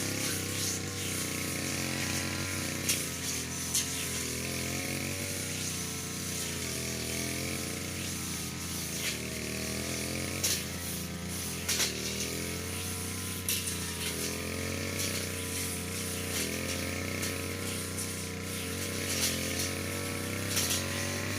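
Brush cutter engine running steadily, its pitch rising and falling a little as the cutting head works through grass, with sharp clicks now and then.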